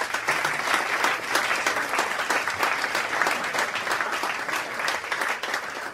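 A seated audience applauding, many hands clapping together at a steady level.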